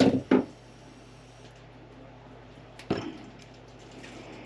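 Hand tools and wire terminals clacking on a wooden workbench: two sharp clacks right at the start and another about three seconds in, over a low steady hum.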